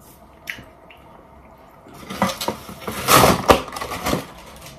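Cardboard box being picked up and handled: a run of scraping, rustling and knocks starting about two seconds in, loudest around the three-second mark, after a single soft click about half a second in.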